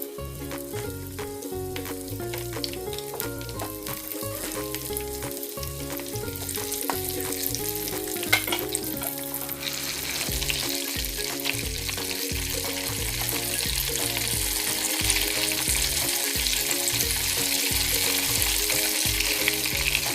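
Chili-and-cheese spring rolls frying in hot oil, a steady sizzle that grows louder about halfway through, with soft background music underneath.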